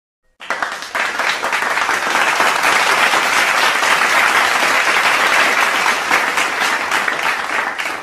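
A large audience clapping: dense, steady applause that starts suddenly about half a second in.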